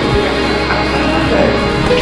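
Live band music: a drum kit and an upright piano playing together in a steady, dense passage.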